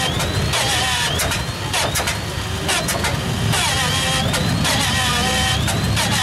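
Bristol Hercules fourteen-cylinder sleeve-valve radial engine starting up and catching: uneven running with repeated sharp pops and a whine that rises in pitch about once a second, steadying into a more even run in the second half.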